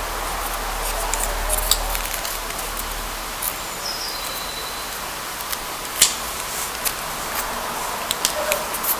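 Wooden craft sticks knocking lightly against each other while a rubber band is stretched and wound round their ends: scattered small clicks, the sharpest about six seconds in and several close together near the end, over a steady hiss.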